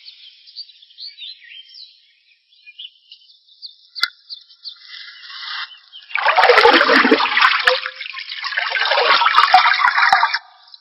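Water splashing and pouring loudly for about four seconds in the second half, then stopping abruptly, with small birds chirping faintly before it.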